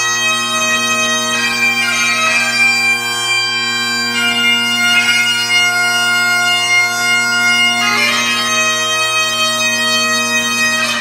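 Bagpipe music: a steady low drone under a chanter melody, fading out at the very end.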